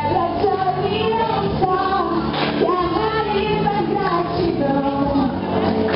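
A young female singer singing Portuguese lyrics into a handheld microphone, with held, gliding notes over a steady instrumental accompaniment.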